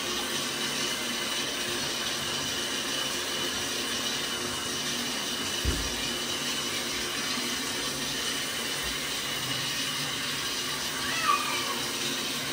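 Shower water running steadily in a tiled bathroom, with a dull knock about halfway through and a short rising high-pitched cry near the end.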